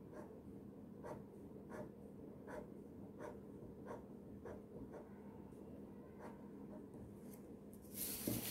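Black fine-tip pen scratching on paper in short, repeated strokes, about three every two seconds, as hatching lines are drawn. A louder rustle comes near the end.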